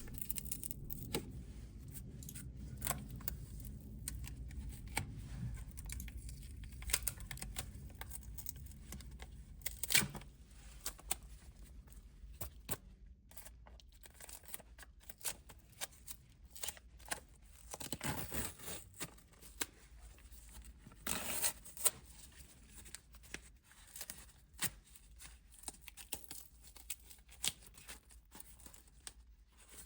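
Scattered clicks, taps and short scrapes as the acrylic workpiece is handled and freed from the CNC mill's bed, with a low hum that fades out about ten seconds in.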